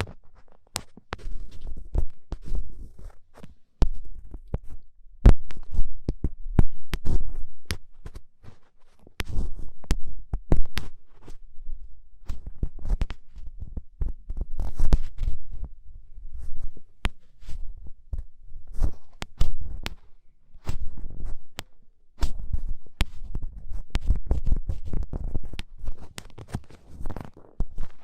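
Ear pick scraping firmly inside an ASMR microphone's ear, close up: irregular runs of scratching with muffled low rumbling and sharp clicks, broken by short pauses.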